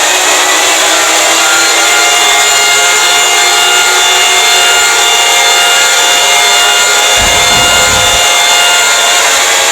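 Fictional Emergency Alert System alarm: many steady alarm tones layered under harsh, heavily distorted noise, loud and unbroken. A brief low rumble comes in about seven seconds in.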